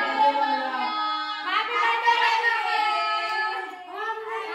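A high-pitched voice singing a melody in long held notes that slide between pitches.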